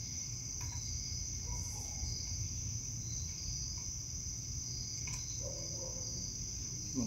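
Steady chorus of crickets trilling, over a low steady rumble, with a few faint taps.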